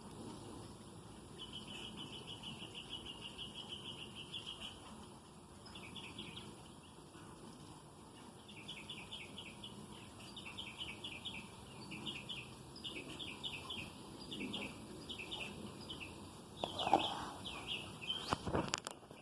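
A bird chirping in repeated rapid trills, phrase after phrase. Near the end there is a louder rustle followed by a few sharp knocks.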